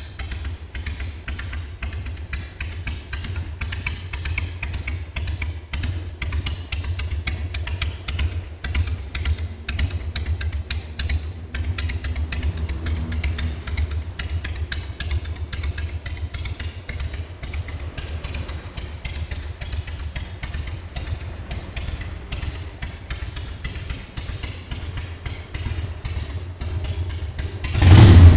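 Harley-Davidson Sportster 1200S air-cooled V-twin idling steadily at a slow idle speed, freshly rebuilt and tuned up. A brief, much louder burst comes near the end.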